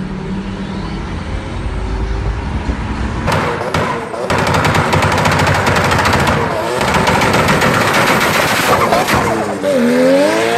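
A car engine runs steadily at first. From about three seconds in comes a rapid, machine-gun-like string of exhaust backfire pops and bangs from a sedan, lasting several seconds.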